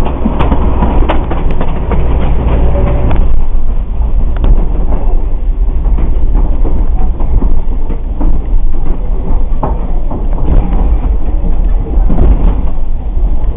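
Narrow-gauge forest railway train running, heard from the carriage coupled right behind the diesel locomotive: a loud, steady low rumble of engine and running gear. For about the first three seconds it is laced with rapid clattering clicks of wheels on the rails, then settles to a smoother rumble with occasional knocks.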